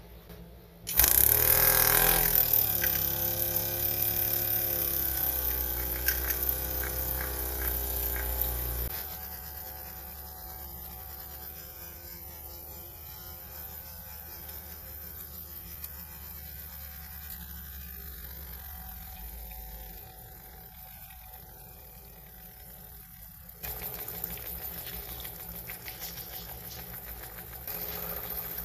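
A small electric motor in a miniature cleaning machine switches on about a second in, spinning up with a rising whine, then runs steadily. Its sound drops in level at about nine seconds and again later, then grows louder near the end.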